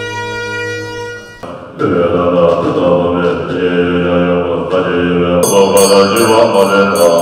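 Tibetan Buddhist monks chanting together in unison, stepping between held pitches. It starts about two seconds in, after a long held horn-like note with many overtones dies away, and from about five and a half seconds a high ringing repeats about three times a second over the chant.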